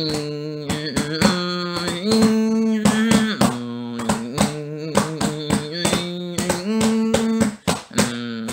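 Music without words: held chords that change every second or so over drum hits, briefly dropping away near the end.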